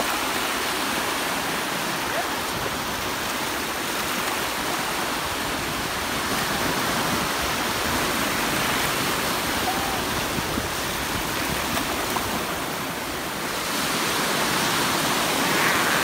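Small sea waves breaking and washing up a shallow sandy beach: a steady rush of surf that swells again near the end.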